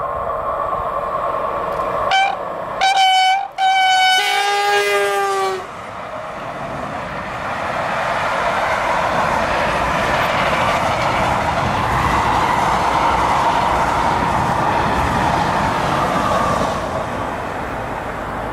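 Freight train horn sounded in several blasts about two to five and a half seconds in, the last blast the longest, its pitch dropping as the locomotive passes. Then the train's wagons run past on the rails for about ten seconds, easing off near the end.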